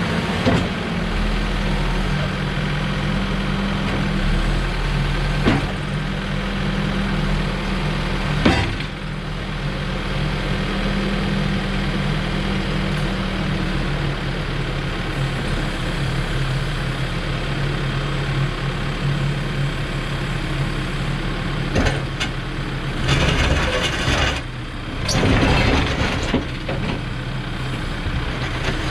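Case 590 Super N loader backhoe's diesel engine running, at a raised speed for about the first half and then settling lower, as the machine is worked. A few sharp knocks come through, and there are two louder bursts of noise near the end.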